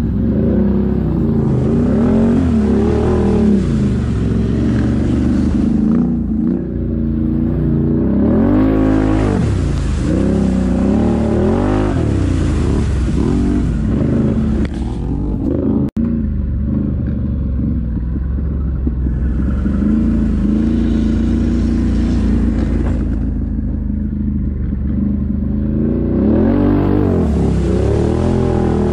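Can-Am 1000 ATV's V-twin engine revving up and down again and again as it is ridden hard through mud.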